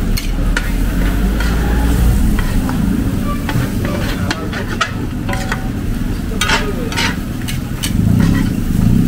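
Pad thai noodles sizzling in a wide steel pan as they are stir-fried. A metal ladle and spatula scrape and clink against the pan at an irregular pace.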